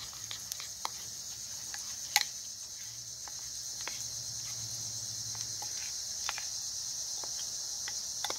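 A spoon stirring thick cornmeal batter in a glass bowl, with scattered light clicks of the spoon against the glass and one sharper click about two seconds in. A steady high chirring of insects runs underneath.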